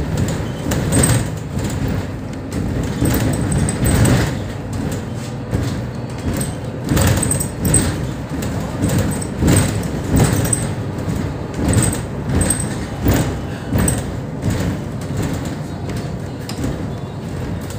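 Mercedes-Benz Citaro O530 city bus on the move, heard from inside near the front: the engine and road noise run steadily while the cabin's panels and fittings rattle and knock over the road's bumps, about once a second.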